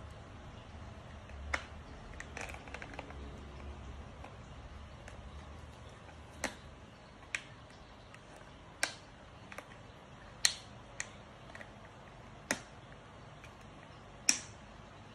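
Irregular sharp clicks and taps of small hard parts and tools being handled while taking a blender apart, about ten in all, a second or two apart, the loudest near the end.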